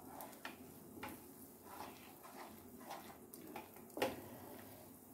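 A wooden spatula scraping and stirring a thick chhana mixture in a non-stick frying pan, in faint strokes about twice a second, with a sharper knock about four seconds in.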